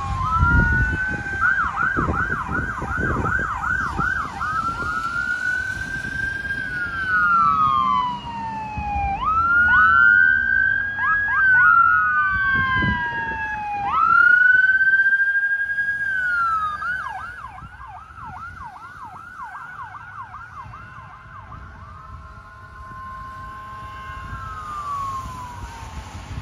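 Ambulance electronic siren on a lights-and-siren emergency response. It switches between a slow rising-and-falling wail and a fast yelp, growing louder as the ambulance approaches, loudest near the middle, then fading as it passes and moves away.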